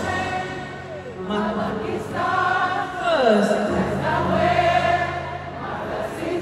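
Live gospel music: voices singing together, with sliding sung notes, over the band's low held bass.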